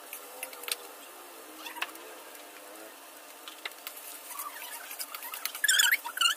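A fork clicking and scraping in a wok as shredded vegetables are stir-fried over a gas flame, over a steady sizzle. Near the end a loud, high-pitched squeak wavers for about half a second.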